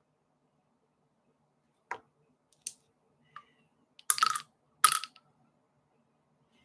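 A few faint clicks, then two brief rustling scrapes about a second apart, from a hand handling game cards and pieces on a tabletop game board.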